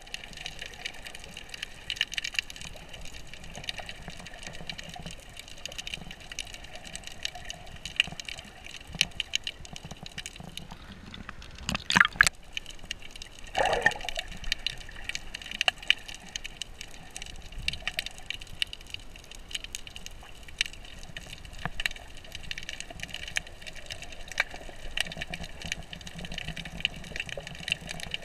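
Underwater ambience heard through a submerged camera: a steady watery hiss with dense scattered crackling clicks, and a brief louder burst about twelve seconds in.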